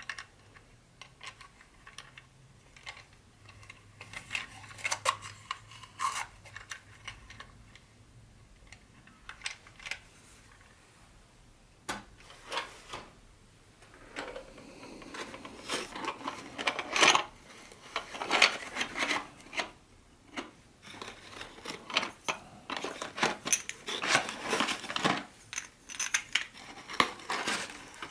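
Hands unpacking and handling small model train pieces and their packaging: scattered light clicks and taps, growing into busier stretches of rustling and clicking about halfway through.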